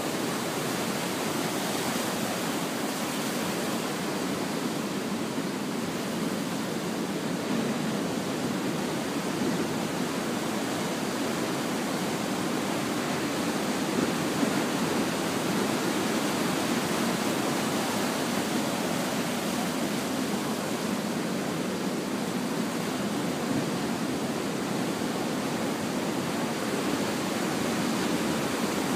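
Heavy hurricane-swell surf: waves breaking offshore and whitewater washing up over a rocky shore, a steady, even rush of sea noise.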